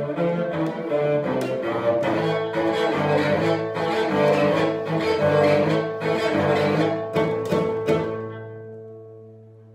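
Solo cello, bowed, playing a fast passage of sharply accented notes and chords, then ending on a held low chord about eight seconds in that rings on and fades away: the close of the piece.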